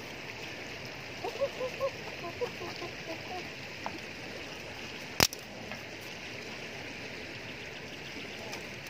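Steady rush of flowing river water, with a single sharp knock about five seconds in.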